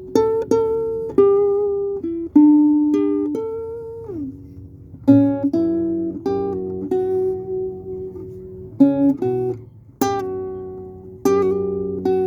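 Acoustic guitar played unaccompanied: single plucked notes and chords that ring out and fade, with one note sliding down in pitch about four seconds in.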